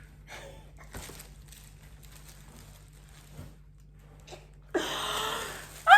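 Packaging being handled during an unboxing: soft rustling and crinkling with a couple of light clicks, then, about five seconds in, a louder rush of noise lasting about a second.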